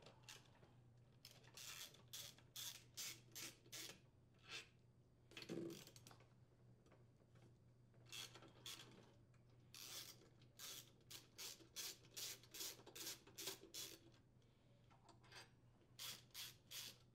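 Faint clicking of a ratchet wrench with a 10mm socket, in quick runs of about three to four clicks a second, as it backs out the cylinder head screws. One duller knock comes about five and a half seconds in.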